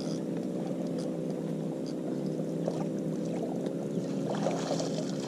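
An engine drones steadily at an even pitch, with faint light knocks or clicks over it.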